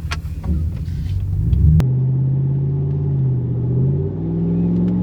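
Dodge Ram 1500's Hemi V8 running through a new Aero Exhaust moderate-sound muffler, heard from inside the cab: the engine builds under acceleration, there is a single click about two seconds in, then it settles into a steady low drone that rises slightly in pitch near the end.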